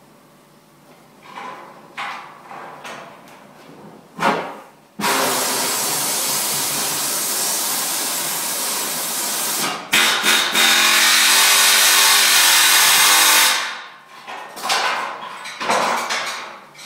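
A power tool running steadily for about eight seconds, stopping briefly and starting again about halfway through. Short knocks and clatters of work come before and after it.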